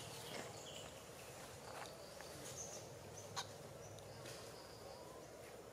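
Faint forest ambience: a few short, high bird chirps and several sharp clicks spread through it.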